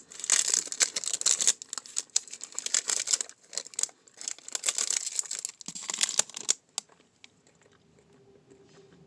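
Plastic candy wrapper crinkling as it is handled, in several bursts of crackling that stop about two-thirds of the way through.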